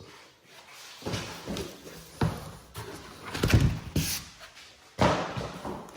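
Cardboard packaging being lifted and shifted: a run of scrapes, rustles and knocks, loudest about three and a half seconds in, with a sharp knock near the end.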